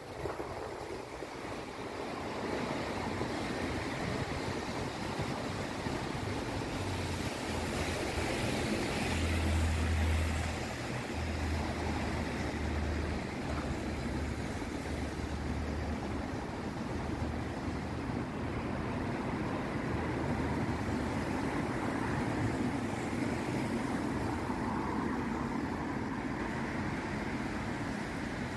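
Busy city street traffic: tyres hissing on a wet road and the engines of passing buses and cars, with a louder low rumble about ten seconds in.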